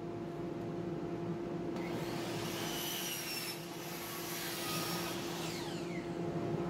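Craftsman sliding miter saw crosscutting a 3/4-inch birch plywood panel: a steady motor hum, then the blade biting into the board about two seconds in. A loud, hissing rip runs through the cut, eases briefly midway and ends about six seconds in as the blade clears the panel.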